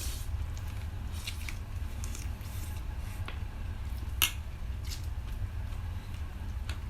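Eating sounds from a chicken curry meal: soft wet chewing and mouth clicks, with one sharp click a little past four seconds in, over a steady low hum.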